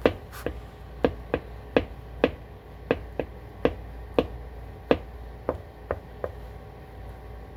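Nike Shox R4 sneakers making a series of sharp clicks, about two a second at uneven spacing, with a pause near the end.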